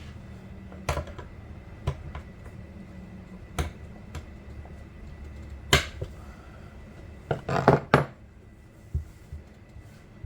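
Sharp metallic clinks and knocks of metal parts and tools being handled and set down, spaced irregularly, with a quick cluster of three near the end.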